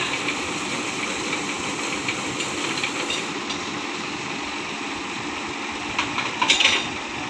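Truck engine running steadily with a hissing noise, and a brief clatter of knocks near the end.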